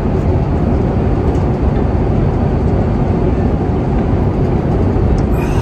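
Airliner cabin noise in flight: a steady, loud rush of engine and airflow noise.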